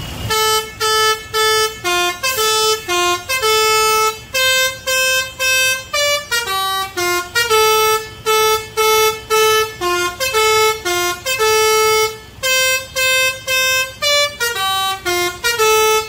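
Basuri 'telolet' multi-tone bus horn playing a long tune of short notes, about two to three notes a second, then stopping.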